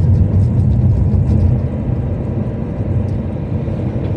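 Car driving along a road: a steady, loud low rumble of engine and road noise.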